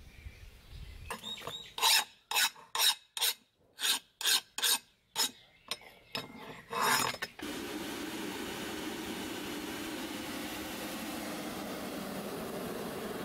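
A small hand file scraped back and forth across the rusty face of an old flat file: about ten rasping strokes, roughly two a second. Then a steady rushing roar from the lit brick forge takes over abruptly.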